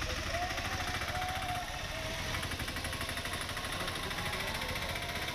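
Auto-rickshaw's small single-cylinder engine running with a rapid, steady chugging pulse.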